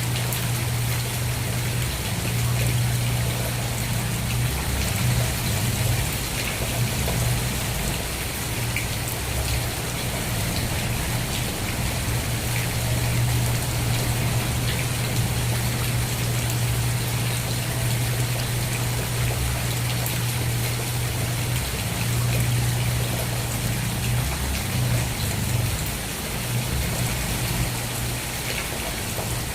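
Steady rain falling, with individual drops ticking and a strong, steady low rumble underneath.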